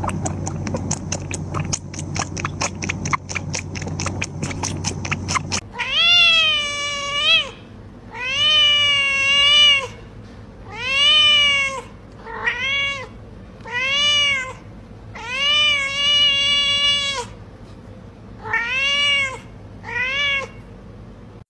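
A quick run of clicks, about four a second, over a low hum for the first five or six seconds. Then a domestic cat meows eight times, in long drawn-out meows that each rise and fall in pitch, with short pauses between them.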